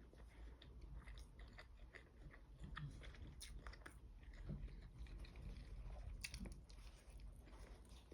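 Faint chewing: a person eating a soft pancake, with small irregular mouth clicks.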